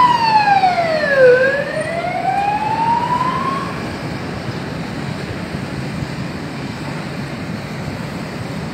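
Wailing siren of an emergency vehicle: its pitch slides down until about a second in, then climbs again and fades out about four seconds in. Steady traffic noise runs underneath.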